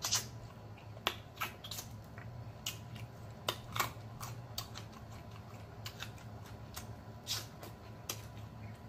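Close-miked eating sounds of turkey neck meat: irregular wet lip smacks and chewing clicks as pulled meat is eaten and fingers are sucked clean.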